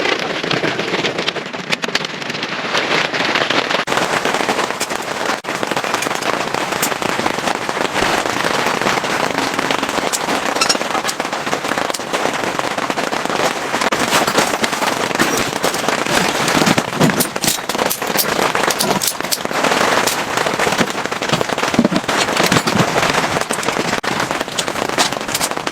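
Heavy rain falling: a dense, steady patter of drops with many sharp individual hits throughout.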